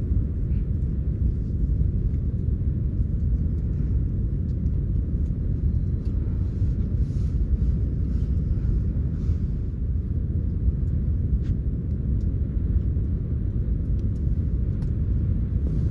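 Wind buffeting the microphone outdoors in the mountains: a loud, steady low rumble.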